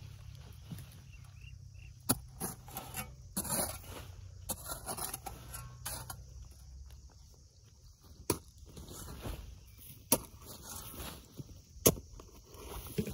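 Dry soil being scraped and pushed into a planting pit around a young plant: uneven rustling and crumbling, broken by several sharp knocks of clods, the loudest near the end.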